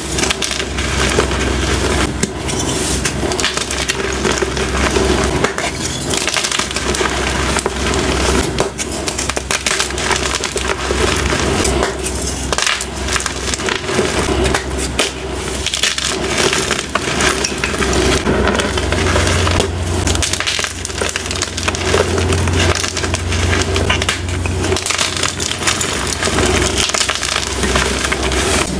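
Blocks of reformed gym chalk, dyed and plain, crushed and crumbled by hand into powder: a continuous, dense crunching and crackling.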